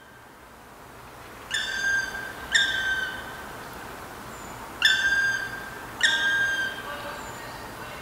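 A pair of black woodpeckers calling back and forth: four long, clear, slightly falling calls in two pairs a second apart. The male and female are squabbling over a roost hole at nightfall.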